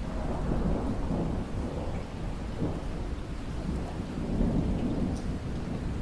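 Steady rain with a low rolling rumble of distant thunder that sets in at the start and swells again about four seconds in.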